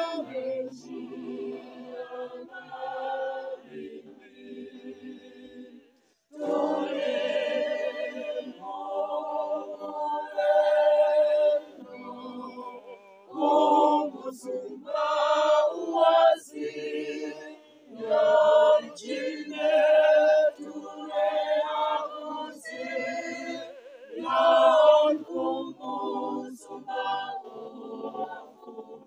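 A group of voices singing a hymn unaccompanied, phrase by phrase, with a brief pause about six seconds in.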